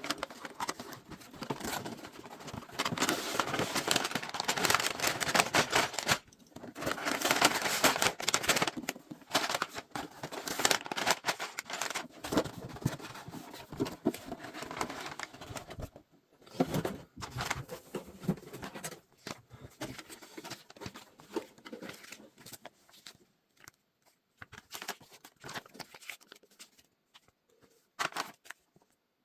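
LEGO set packaging being opened and handled: tearing cardboard and plastic bags rustling and crinkling in spells of a few seconds, with many small clicks and rattles in between.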